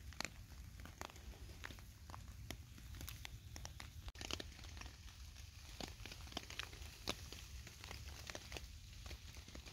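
Scattered raindrops and drips tapping irregularly, a few a second, as a heavy shower tails off, over a faint low rumble.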